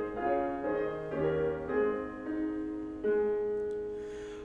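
Solo piano playing a short instrumental interlude in a classical song: a run of separate notes, then a chord struck about three seconds in and left to fade.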